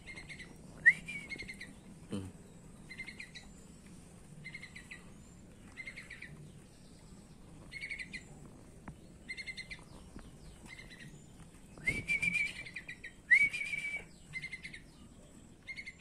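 Birds chirping: short trilled chirps repeating about once a second, with a few louder upward-sliding calls about a second in and again later on.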